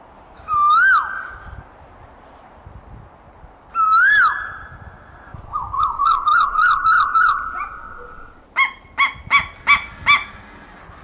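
Asian koel calling: two separate whistled notes that rise and then drop steeply, a quick bubbling run of about a dozen notes, then five short, sharp notes in quick succession near the end.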